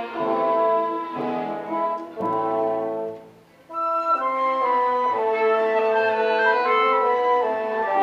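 A live orchestra playing slow, held chords. The music stops for about half a second around three seconds in, then comes back in on a new, higher chord.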